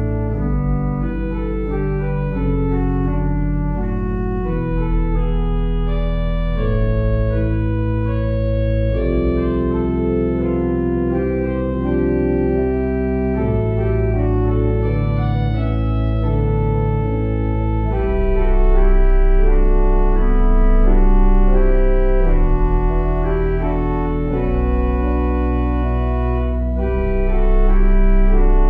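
Organ music: sustained chords over deep held bass notes, the chords changing every second or two, swelling louder about two-thirds of the way through and again near the end.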